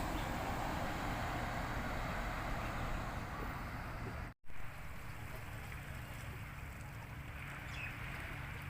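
Seaside ambience: a steady wash of sea and wind noise, with a low steady hum underneath. The sound cuts out for a moment about four seconds in, then carries on a little quieter.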